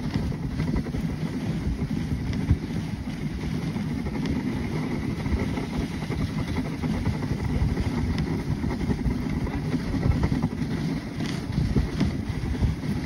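Dog sled gliding along a snowy trail: a steady rumbling scrape from the runners on the snow, mixed with wind buffeting the microphone.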